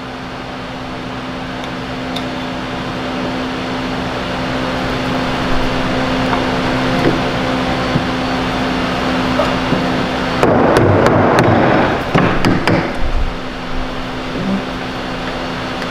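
A steady mechanical hum. About ten seconds in, a couple of seconds of scraping and clicking as PVC pipe fittings are twisted together and pressed down on a wooden workbench, followed by a few lighter clicks.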